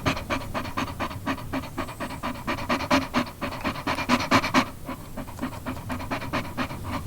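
A dog panting: quick, even, breathy in-and-out breaths, about five a second, growing softer about two-thirds of the way through.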